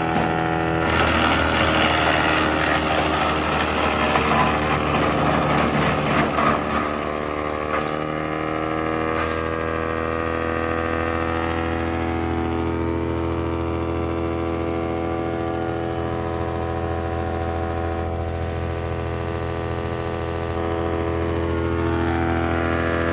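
Wood chipper machine running with a steady motor hum. For the first several seconds a louder, rough, crackling noise rides over it, then it settles back to steady running.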